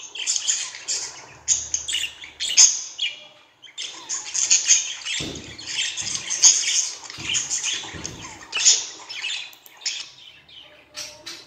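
Budgerigar warbling and chattering in rapid, continuous bursts of high chirps and squawks, with a brief pause about three and a half seconds in.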